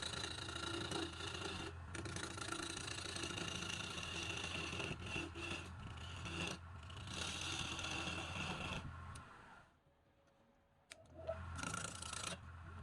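Woodturning lathe running while a tool rubs and scrapes the spinning wood, a steady scraping over a low motor hum. It cuts out for about a second near the end, then starts again after a click.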